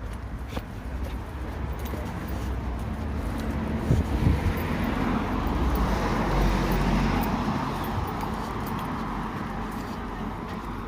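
A car passing by, its tyre and engine noise building to a peak mid-way and then fading, over wind rumbling on the microphone.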